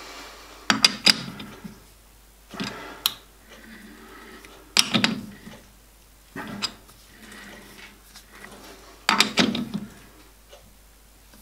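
Metal clicks and clunks from a four-jaw lathe chuck being adjusted by hand, the chuck key turning the jaw screws to set the work off centre against a dial indicator. They come in about five short groups a second or two apart.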